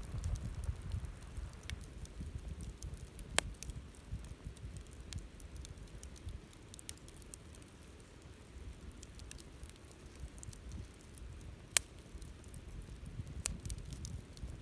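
Wood campfire burning: soft, scattered crackling over a low rumble, with two sharp pops, about three and a half seconds in and near the end.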